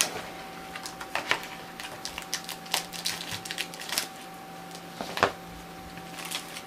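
Packing tape being cut and cardboard, paper and plastic wrapping unwrapped by hand: irregular crinkles, rustles and light clicks, with one sharper tap about five seconds in. A faint steady hum lies underneath.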